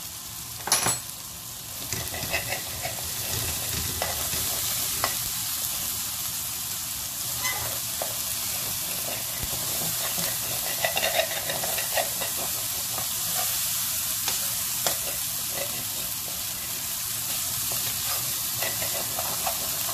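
Onion-tomato masala with ground spices sizzling in oil in a metal kadai while a slotted metal spoon stirs it, scraping and ticking against the pan. A sharp knock of the spoon on the pan about a second in.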